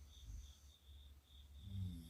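A sleeping person snoring faintly, with a snore building near the end. A faint high pulsing chirp repeats about three or four times a second behind it.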